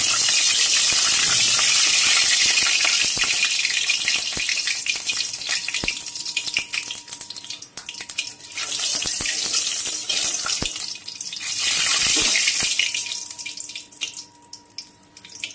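Small fish frying in hot oil in an aluminium kadai: a loud, crackling sizzle that swells twice as the pan is stirred and dies down near the end, with a few knocks of a metal spatula against the pan.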